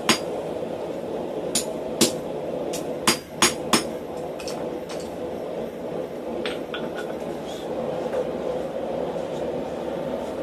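Blacksmith's hammer striking hot steel on an anvil: sharp, ringing blows at an uneven pace, about seven heavy ones in the first four seconds, then lighter, fainter taps. A steady low rushing noise runs underneath.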